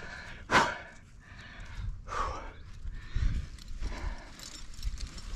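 A rock climber breathing hard with effort: a loud, sharp exhale about half a second in and a weaker one about two seconds in, followed by low bumps and rustling as he moves on the rock.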